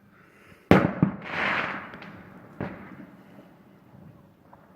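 Fireworks going off: two sharp bangs about a second in, followed by a hissing crackle, then another bang near the three-second mark.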